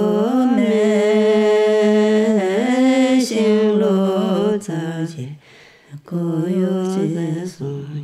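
A single voice singing long, held notes in a slow, chant-like melody, with a short break between phrases about five and a half seconds in.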